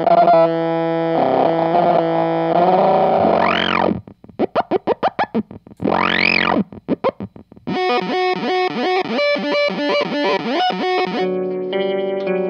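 Electric guitar through a Bliss Factory fuzz pedal: thick fuzzed notes, then a rapid choppy stutter, with squealing oscillation sweeping up and back down twice, and a busy warbling fuzz riff through the second half.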